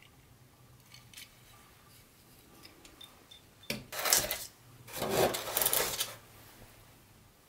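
Handling noises: a few light clicks, then two short bursts of rubbing and scraping about a second apart, the second one longer.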